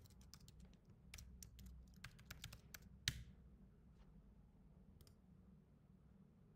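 Faint typing on a computer keyboard: a quick run of keystrokes over about three seconds while a username and password are entered, with one louder click about three seconds in. A couple of scattered clicks follow over a low steady hum.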